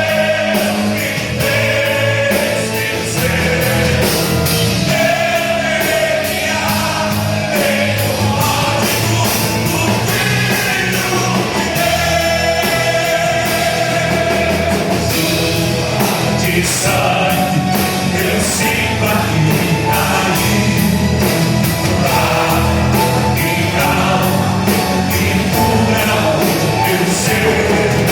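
Gospel rock band music with singing over a steady beat.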